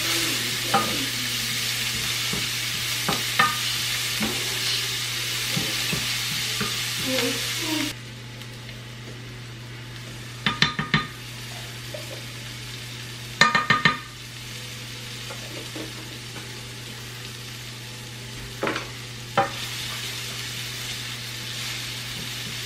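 Chopped onions sautéing in a frying pan, sizzling while they are stirred with a wooden spatula. The sizzle drops sharply about eight seconds in, with two short runs of quick clicks a little later, and picks up again near the end, over a steady low hum.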